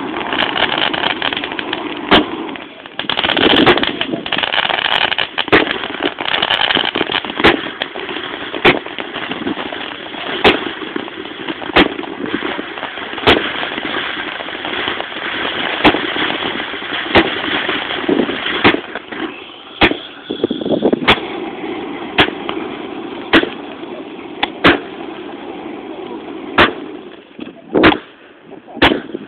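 Fireworks going off in a steady series: a sharp bang about once a second over a continuous hiss and crackle of burning sparks.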